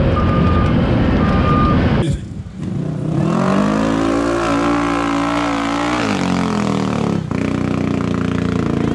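Loud close-up machinery noise from a tracked excavator, with a high beep sounding a few times, then a side-by-side UTV engine revving up, holding high and easing back off, and after that running steadily.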